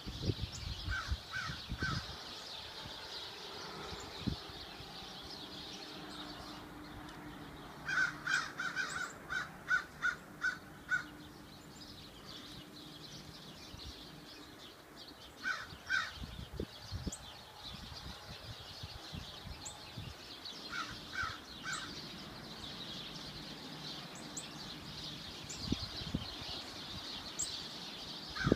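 A bird calling in short groups of two or three calls, with one longer run of about eight calls at roughly three a second, over steady background noise.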